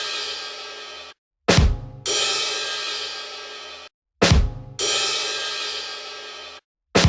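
Comedy rimshot sting ("ba-dum-tss") on a drum kit, played over and over about every 2.7 seconds. Each time a quick drum hit comes first, then half a second later a cymbal crash that rings for nearly two seconds and is cut off abruptly. Two complete stings are heard, with the ringing tail of one at the start and the drum hit of the next right at the end.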